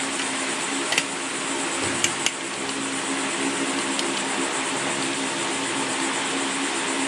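Screwdriver driving small screws into a Snapper push mower's wheel bearing flange: a few light metal clicks, two of them close together about two seconds in. Underneath is a steady hiss and hum.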